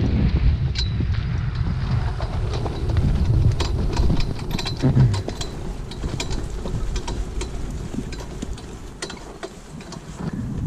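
Wind buffeting the microphone of a horse-drawn training cart moving at speed on a dirt track, easing after about five seconds, with repeated clicks and rattles from the cart and the horse's hooves.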